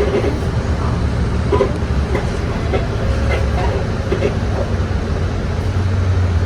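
Bus cabin noise: the steady low drone of the engine and road, with short creaks and rattles from the bus body coming every half second or so.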